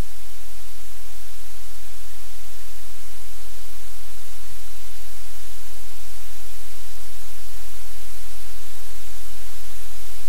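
Steady, loud static hiss with a low hum beneath it.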